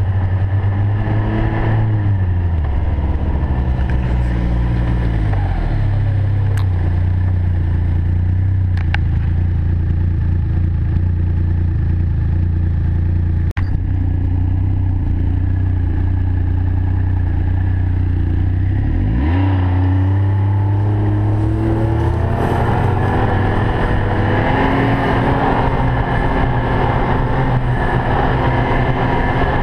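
Ski-Doo Expedition LE's 1200 4-TEC four-stroke three-cylinder engine running steadily while under way. Its pitch falls over the first few seconds as it slows, then rises about twenty seconds in as it speeds up and holds there. A single sharp knock comes about halfway through.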